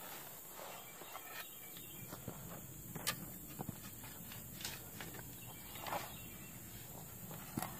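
Steel spade blade being stepped into compacted gravel and dirt, with scattered crunches and scrapes of stones against the blade, the sharpest about three and six seconds in. A steady high insect hiss runs underneath.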